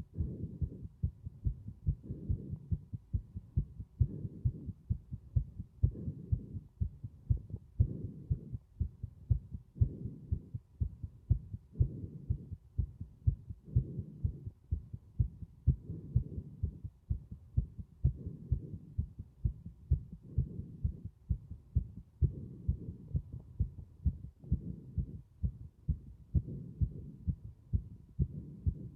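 Heartbeat thudding in a steady, even rhythm, with breath sounds swelling and fading underneath about every two seconds.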